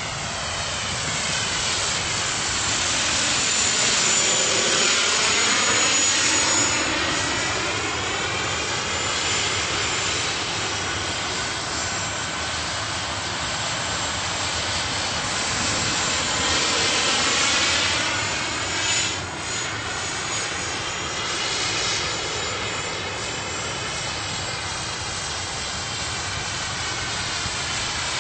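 A turbine-powered Vario scale Lama RC helicopter in flight: a steady jet-turbine whine and rotor noise, its tone swirling and sweeping as the helicopter moves about. It is loudest about four to six seconds in and again around seventeen seconds.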